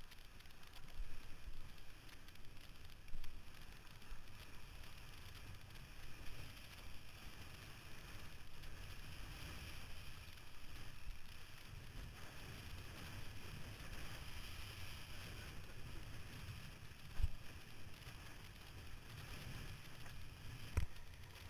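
Wind buffeting the microphone and water rushing under a windsurf board sailing fast over choppy water, with a few sharp thumps, the loudest late on.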